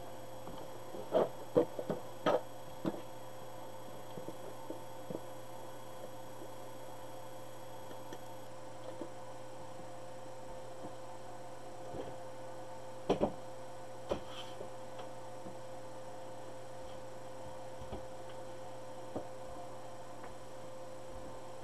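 Steady electrical hum with a few light knocks and clicks: a small cluster about a second in and a sharper knock just after the middle.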